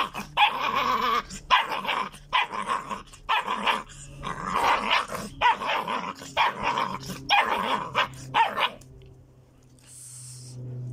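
Pit bull puppies play-fighting, growling and yipping in quick short bursts that stop about three-quarters of the way through.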